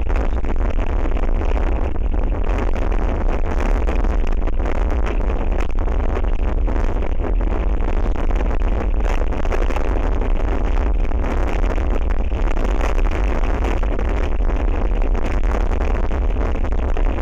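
Strong wind buffeting an outdoor nest-camera microphone: a steady, loud rumble and rush.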